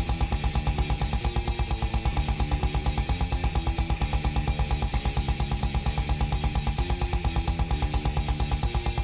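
Background music: fast rock with a driving, steady beat, guitar and drums.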